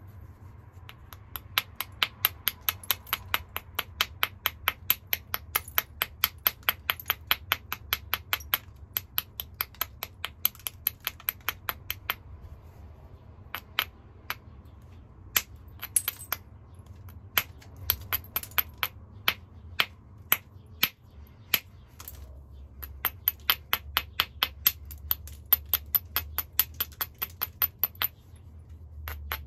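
A small hand-held stone working the edge of a hornstone biface in quick, light, sharp strokes, about five a second. The strokes come in a steady run, thin out to scattered strokes in the middle, then pick up again near the end.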